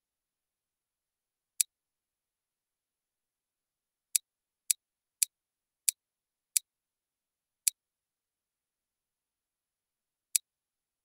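Computer mouse clicks, sharp and isolated: one click, then six more spaced roughly half a second to a second apart, then a last one near the end.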